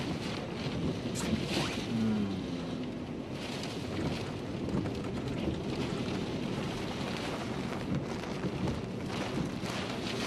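Hurricane wind and heavy rain lashing a vehicle as it drives through the storm: a steady rushing noise over a low rumble, swelling in gusts.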